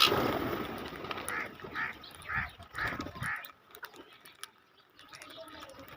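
A bird calling five short times in quick succession, after a sudden loud noise right at the start.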